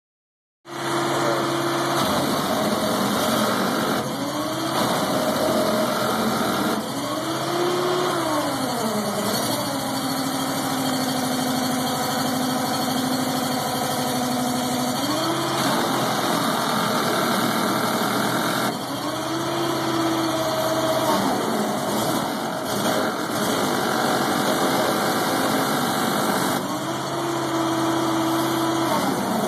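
Hydraulic power unit of an M-B broom running steadily. Its tone rises and falls in slow swells lasting a couple of seconds, several times, between steadier stretches.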